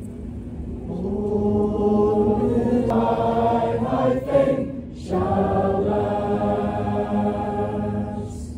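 A group of voices singing together in long held chords, swelling to the loudest point about four seconds in, breaking off briefly about five seconds in, then holding another chord.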